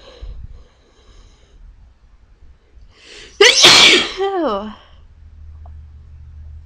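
A person sneezing once: two faint breathy inhales, then one loud, sudden sneeze about three and a half seconds in, ending in a voiced tail that falls in pitch.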